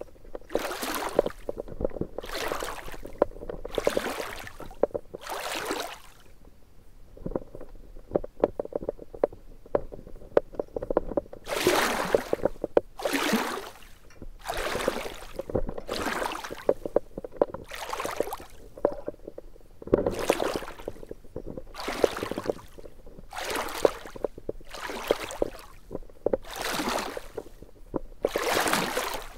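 Water rushing over an underwater action camera as it is pulled through the water, in surging whooshes about once a second, with rapid clicking in between. The whooshes pause for a few seconds near the middle, leaving only the clicking.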